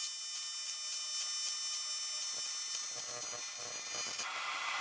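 AC TIG welding arc on aluminum sheet, from a Prime Weld TIG welder, giving a steady high buzz that cuts off near the end as the arc stops.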